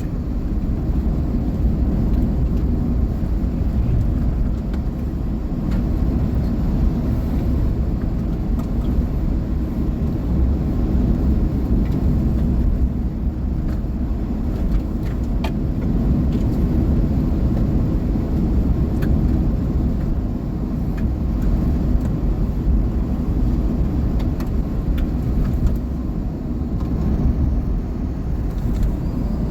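Steady road and engine noise of a car driving at a constant speed, heard from inside the cabin, with a deep, even rumble.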